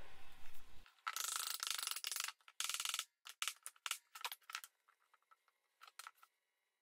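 Workshop handling noises from gluing up dovetailed oak parts: a rustling, scraping stretch about a second in and a shorter one near three seconds, then a quick run of short clicks and knocks as a dovetailed board is tapped with a rubber mallet, with two last knocks near six seconds.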